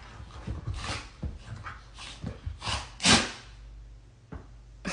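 Two puppies playing, making a run of short, irregular noises, with one louder burst about three seconds in.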